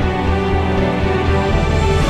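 Background music with sustained bass notes and held chords.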